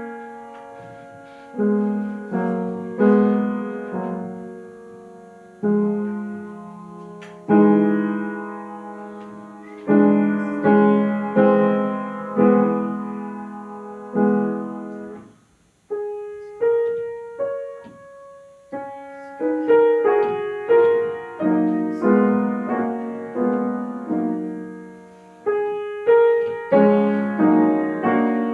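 Piano playing a slow classical piece: chords and single notes struck one every second or two and left to ring and fade, with a short break about halfway through before quieter single notes resume.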